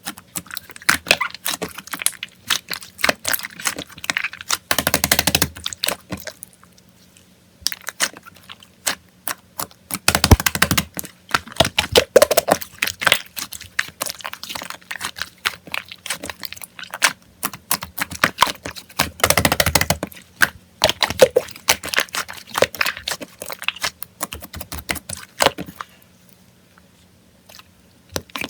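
Slime being squeezed and poked by hand, giving a dense run of sticky clicks and small pops, with heavier squelching bursts about five, ten and twenty seconds in. It goes nearly quiet shortly before the end.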